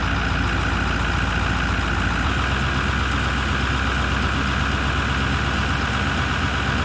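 Ford 6.4 litre Power Stroke V8 diesel engine idling steadily on a cold day, its low note shifting slightly about two seconds in.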